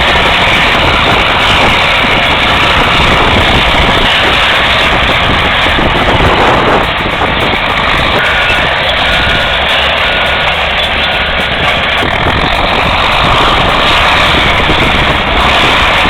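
Heavy diesel engine of a bulldozer running steadily and loudly. Around the middle, a backup alarm beeps about four times, roughly once a second.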